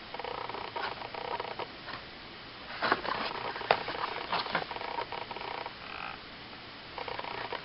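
Light handling noise: scratchy rustling with a few sharp clicks about three, three and a half and four and a half seconds in.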